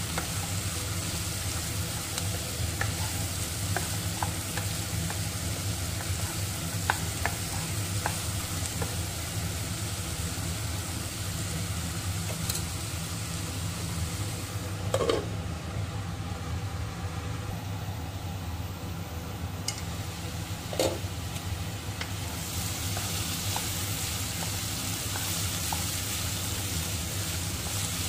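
Diced carrots and green chillies sizzling as they stir-fry in a nonstick pan, with a spatula scraping and clicking against the pan and a steady low hum underneath. Two louder knocks come midway, and the sizzle dies down for a few seconds around them.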